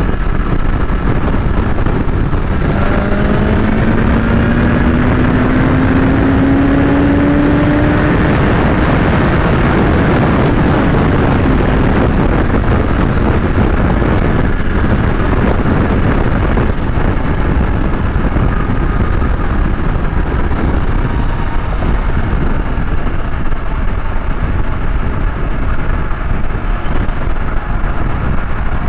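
Motorcycle riding at highway speed, heavy wind and road rush on the rider's microphone. A few seconds in, an engine note rises steadily in pitch as it accelerates.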